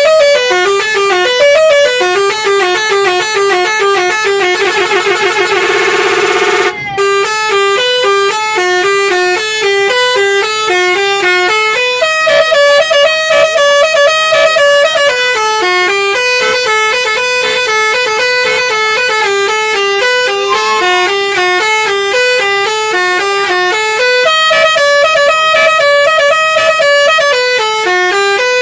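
Basuri bus's telolet horn, a set of musical air horns, playing a fast tune of stepping notes. About four and a half seconds in it breaks into a rapid warbling chord, which cuts off suddenly near seven seconds; the tune then carries on.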